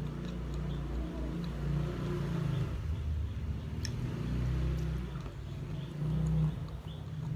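Low, uneven rumble of a motor vehicle's engine, with a faint click about four seconds in.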